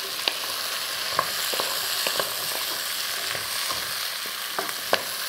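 Diced pumpkin, ginger and soup vegetables sizzling in sunflower oil in a pot, being sweated without browning. A wooden spoon stirs them, knocking and scraping against the pot several times, with the sharpest knock near the end.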